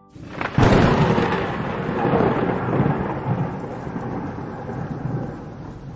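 A sudden thunderclap about half a second in, followed by a rolling rumble that slowly fades under a steady hiss of rain.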